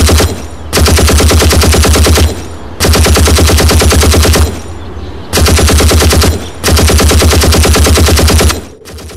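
Machine-gun fire: five long bursts of rapid, evenly spaced shots, each lasting one to two seconds with short gaps between, the firing dropping much quieter near the end.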